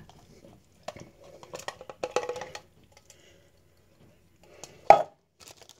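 Canned pineapple chunks tipped from the can into a plastic portion container: a run of soft clicks and plops over the first few seconds, then one sharp knock about five seconds in.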